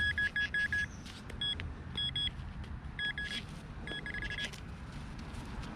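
Handheld metal-detecting pinpointer beeping in runs of short beeps, all at the same pitch. There is a quick string of beeps at the start, then shorter bursts about once a second, as the probe sounds off on a metal target in the dig.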